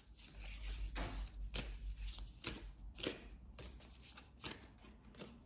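A deck of oracle cards being shuffled by hand: a run of quick, irregular card snaps and slaps.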